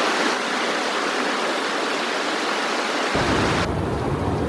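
Fast river water rushing over a riffle, a steady hiss. A little after three seconds in, a low rumble like wind on the microphone comes in and the bright hiss drops back.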